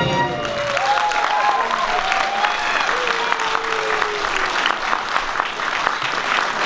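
Audience applauding, a dense clatter of many hands clapping after the music stops.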